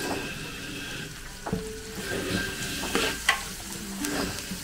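Chicken curry frying and sizzling in a large cooking pot as it is stirred, the stirring tool scraping and knocking against the pot several times, sharpest a little past three seconds in.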